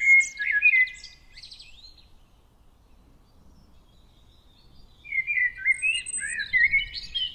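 Songbird singing in the open: a rapid phrase of varied high chirps and warbles that stops about a second and a half in, a pause of about three seconds, then another phrase starting about five seconds in.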